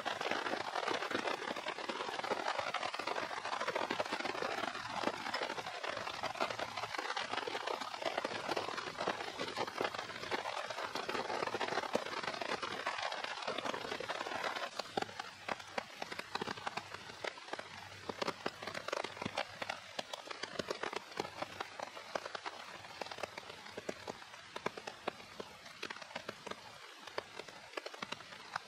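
Steady patter of rain, with a small kindling campfire crackling and popping. It all drops quieter about halfway through.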